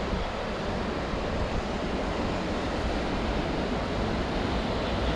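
Steady rush of river water pouring over a low concrete weir, with some wind buffeting the microphone.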